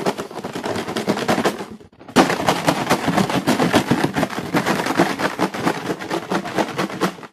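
A bicycle chain rattling inside a capped bottle with a little extraction petrol, shaken hard to wash the chain clean. A fast, dense rattle, with a short break about two seconds in.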